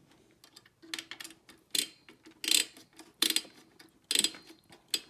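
Screwdriver turning the CPU cooler's spring-loaded mounting screws into the motherboard bracket: six short clicking, scraping turns, about one every three-quarters of a second.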